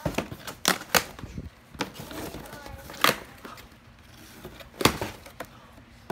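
Sharp knocks and thuds of boxes and packages being handled and set down, four loud ones spread out, with faint rustling of packaging between them.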